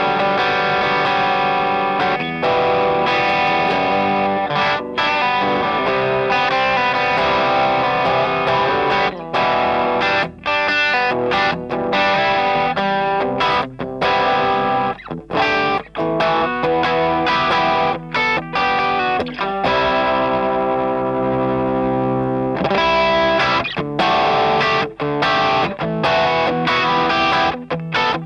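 Electric guitar played through a TS808 Tube Screamer clone overdrive pedal: overdriven chords and riffs, with short choppy, muted-sounding strokes in the middle and one chord left ringing about two-thirds of the way in.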